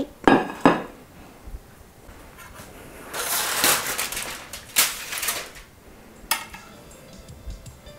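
Dishes being handled on a stone countertop: a few light clicks, then a few seconds in a long scraping slide. About six seconds in comes a sharp clink as a metal serving spoon meets a glass baking dish.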